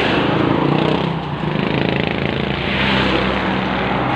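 Motor vehicles passing close by on the road. The first vehicle's engine note drops in pitch as it goes past, and a second swell of engine and road noise comes about three seconds in.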